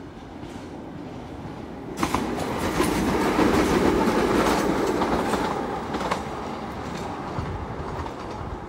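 Ex-London Underground 1938 tube stock electric train passing, its wheels clicking over the rail joints. It swells in suddenly about two seconds in, is loudest a second or two later, then fades away.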